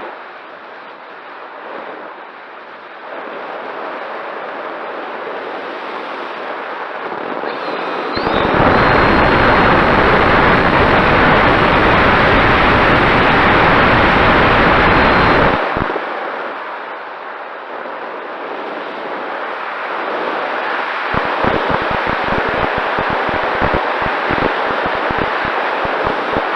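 Wind rushing and buffeting over the microphone, swelling to a loud roar for several seconds in the middle, then a run of low thumps as gusts hit the microphone near the end.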